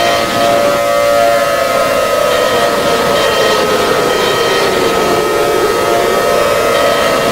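Emergency alert alarm siren sounding loud and unbroken: steady high tones over a lower tone that slowly sinks in pitch through the middle and rises again near the end.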